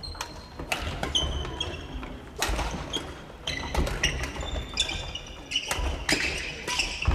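Badminton play on a wooden gym floor: sneakers squeaking in short high chirps, feet thudding, and rackets knocking shuttlecocks, at irregular moments throughout, with the echo of a large hall.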